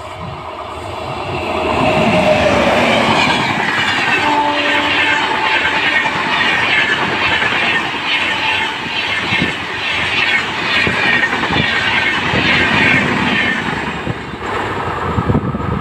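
Double-decker express train hauled by a WAP-7 electric locomotive passing close at speed: a steady rush with the fast, regular clickety-clack of the coaches' wheels over the rail joints. It builds over the first couple of seconds and eases off as the last coach goes by near the end.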